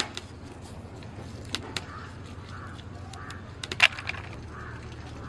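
A few sharp cracks and snaps, the loudest a little before four seconds in, over faint distant voices.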